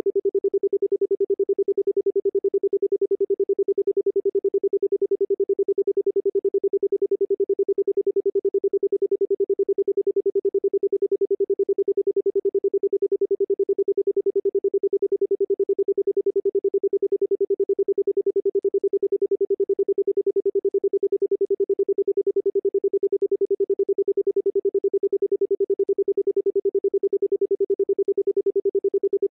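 Steady pure electronic tone, rising and falling rapidly and evenly in volume.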